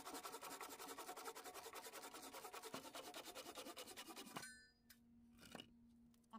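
Handsaw cutting through a reclaimed timber beam in rapid, even strokes, which stop about four seconds in as the cut goes through. The blade rings briefly, then there are a few light knocks.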